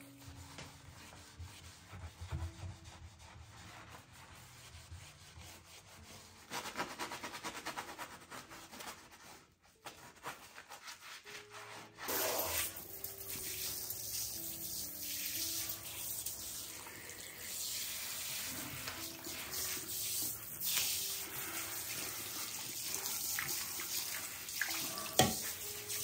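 Sponge scrubbing a ceramic bathroom sink, then about halfway the tap is turned on and water runs steadily into the basin. There is a single sharp knock near the end.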